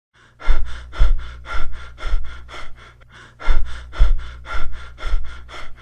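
Demonstration recording of Biot's respiration: quick, gasping breaths about two a second, in two runs broken by a short pause about halfway, with no regular pattern. A low steady hum runs under the breaths.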